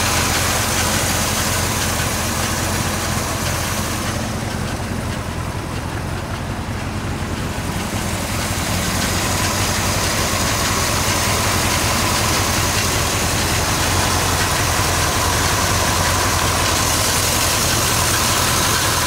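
1969 Corvette Stingray's 427 cu in big-block V8 (Turbo-Jet 390 hp) idling steadily with the hood open.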